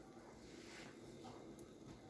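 Near silence: room tone with a faint soft rustle and a couple of light ticks.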